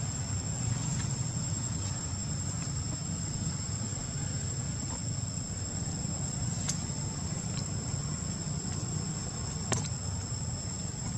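Steady high-pitched insect drone, like crickets or cicadas, over a low steady rumble, with two sharp clicks about two-thirds of the way in and near the end.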